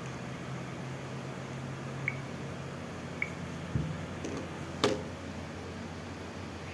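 Steady room background hiss with a low hum that stops with a soft thump about halfway through, two faint short high chirps before it, and one sharp click a little before five seconds in.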